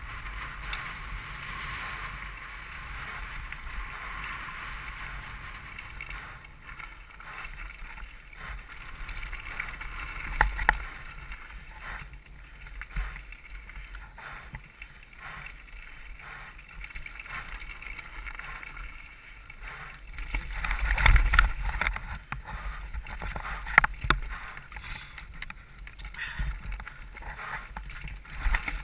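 Mountain bike ridden fast down a dirt singletrack: wind rushing over the helmet camera, tyres on dirt and the bike's chain and frame rattling and knocking over bumps and rocks. A louder stretch of rumbling and knocks comes about three-quarters of the way through.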